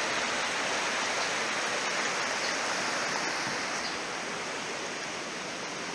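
Steady rushing of a fast-flowing river, a little quieter in the last couple of seconds.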